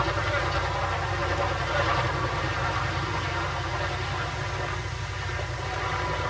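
An engine running steadily at a constant speed, a continuous drone of heavy equipment.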